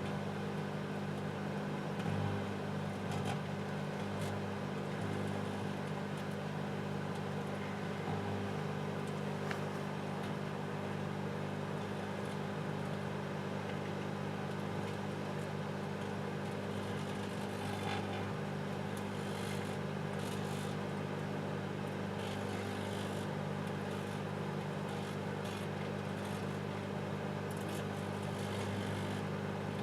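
Microwave oven running with a steady electrical hum while a CD inside it arcs and crackles in scattered bursts, thickest about two-thirds of the way through.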